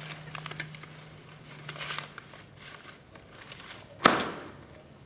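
Light rustling and small taps as a cloth bundle of food is handled and unpacked, then one sharp knock about four seconds in.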